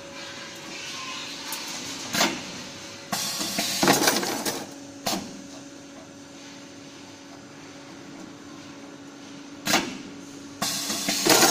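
A CNC wire bending machine working steel wire: a steady motor hum, broken by a few sharp clacks and two longer bursts of metallic clattering, about four seconds in and near the end.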